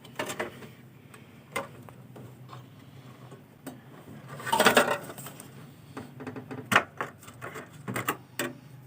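Scattered clicks and small knocks of hands working inside a desktop computer case, pulling out and seating a RAM stick, with a longer scraping clatter about four and a half seconds in.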